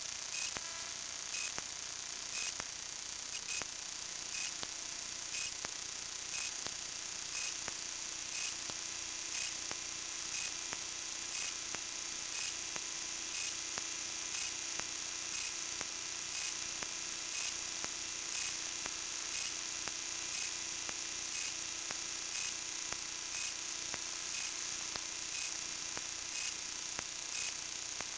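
Steady high electronic hiss from a small kite-borne camera's own circuitry, with a faint tick about once a second and a low hum that comes in a few seconds in.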